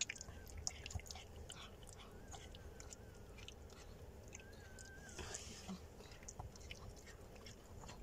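Mother Chihuahua licking and nibbling at a newborn puppy held up to her mouth: faint, irregular wet smacking and clicking sounds.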